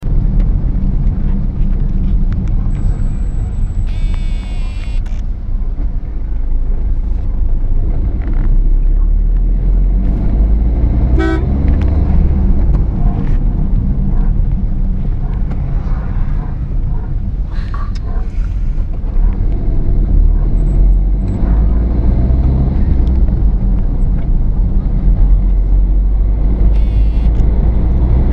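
Car engine and road rumble heard from inside the moving car's cabin, with a few short horn toots.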